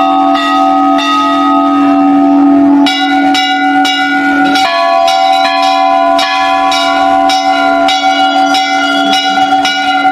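Bells ringing continuously, struck again and again a few times a second, with the ringing pitches shifting a couple of times.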